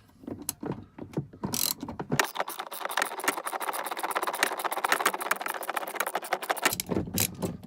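Ratchet wrench clicking rapidly as it turns a toilet's mounting nut, after a few scattered knocks of the tool on the nut. The quick run of clicks starts about two seconds in and stops near the end.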